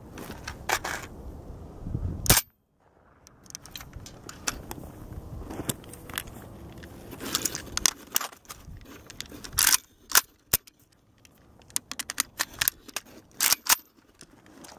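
A 5.45×39 AKS-74U carbine firing a few sharp shots in the first couple of seconds, the last and loudest at about two seconds in. After that come scattered metallic clicks and clacks of the rifle being handled during a magazine change, with a few louder clacks as the new magazine goes in near the end.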